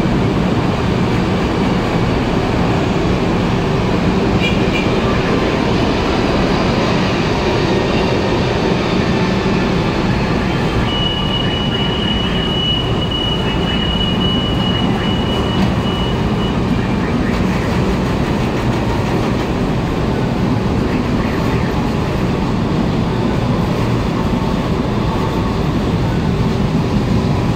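LRT-1 4th-generation light rail train (13000 class) running slowly past on elevated track: a steady rumble of wheels on rail and running gear. A high thin squeal holds for about five seconds in the middle.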